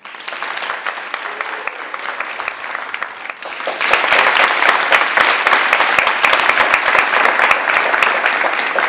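Audience applauding: many people clapping at once, a dense crackle of claps that grows louder about four seconds in.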